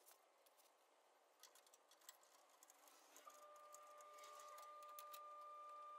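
Near silence: faint scattered clicks and ticks, then from about three seconds in a faint steady high whine.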